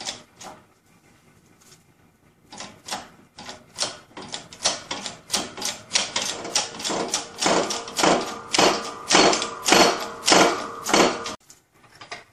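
H-frame shop press being worked to press a bearing onto a pinion gear shaft: a steady run of sharp metallic clicks, about two to three a second, getting louder as the stroke goes on and stopping abruptly near the end.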